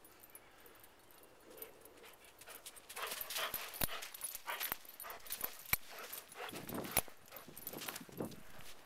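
Footsteps crunching in snow close to the microphone, starting about three seconds in, with a few sharp clicks. A golden retriever whimpers among the steps near the end.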